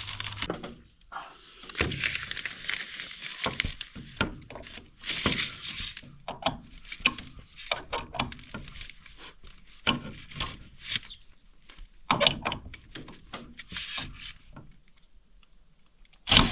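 Scattered knocks, taps and clatter of boards and tools being handled, with stretches of scraping or rustling and no steady motor sound.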